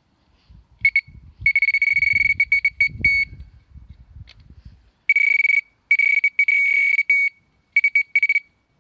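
Electronic carp/pike bite alarm beeping in irregular runs of one steady high note, short blips and longer strings, set off by the line moving over its sensor as the rod is being set into it. Low rustling of the rod being handled runs under the first half.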